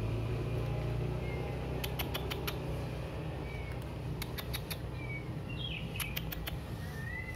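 Ginger cat crunching dry kibble: three quick clusters of crisp crunches about two seconds apart. Faint short high chirps come and go, over a low steady hum that fades after the first couple of seconds.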